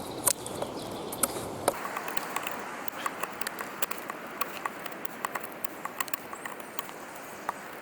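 Wavy-edged blade of a Victorinox Soldier pocketknife cutting into hard wood: a run of short, irregular clicks and scrapes, several a second, each stroke taking off very little wood.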